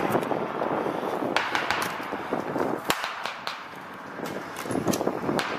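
Scattered rifle gunfire in a forest firefight: several sharp cracks at irregular intervals, the loudest about three seconds in.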